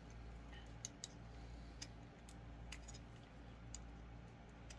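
Faint, scattered little clicks and ticks of a small hand tool working a turntable tonearm's bearing screw loose, about seven in all, over a low steady hum.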